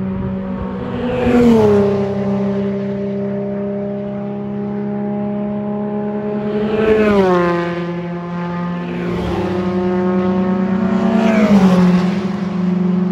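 Club race cars on a formation lap driving past one after another at a steady, moderate pace with their engines held at constant revs. Three pass close by a few seconds apart, each dropping in pitch as it goes by; the last is a Volkswagen Golf IV race car.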